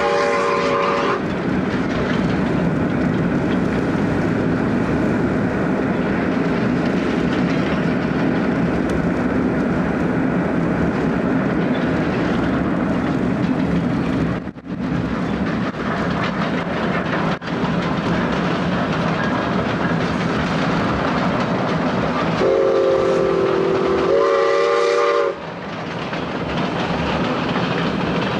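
Steam locomotive running with a train, a steady rumble with rail clatter. Its chime whistle cuts off about a second in and sounds again for about three seconds near the end, in two parts.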